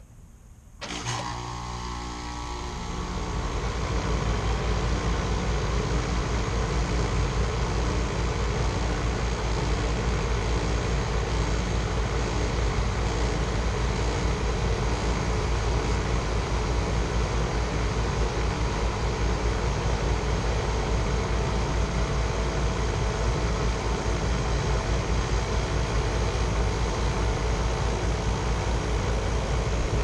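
Heat pump outdoor unit starting up in heat mode after its defrost board's five-minute delay: it kicks on suddenly about a second in, builds over the next few seconds as the compressor and outdoor fan come up to speed, then runs steadily.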